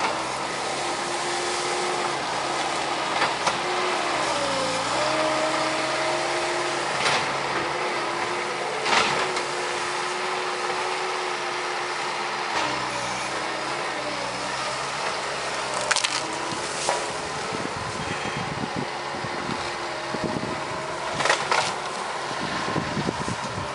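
Bobcat S185 skid steer's diesel engine running steadily and dipping in pitch as it lugs under load a few seconds in, with sharp cracks of wood snapping and splintering as the hydraulic tree shear cuts and pushes through brush and limbs.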